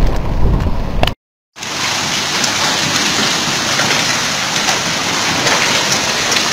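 A loud low rumble cuts off abruptly about a second in. After a moment of silence, heavy rain pours steadily onto a flooded street, a dense, even hiss.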